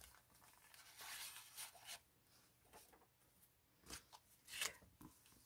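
Faint rustling of a paper coffee filter and a card being handled and laid down on the craft mat, with a light tap about four seconds in.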